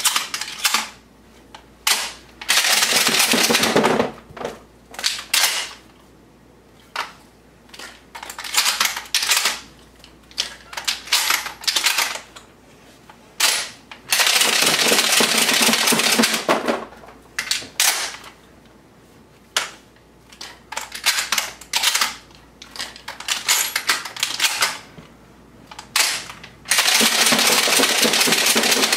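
Dummy shotgun shells clacking as they are pulled from belt-mounted shell carriers and pushed into a shotgun's loading port during reload practice: scattered clicks, with three stretches of dense, rapid rattling about 3 seconds in, about 14 seconds in and near the end.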